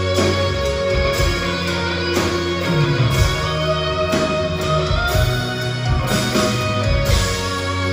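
Live rock band playing loudly in a concert hall, guitars and keyboards over bass and drums, heard from within the audience through a phone's microphone.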